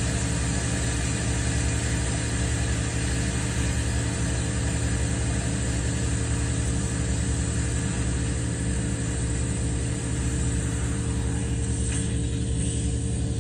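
A pickup's engine idling steadily under a constant hiss of compressed air and water blowing out of the opened drain of a still-pressurised train-horn air tank. The hiss thins out near the end as the pressure drops.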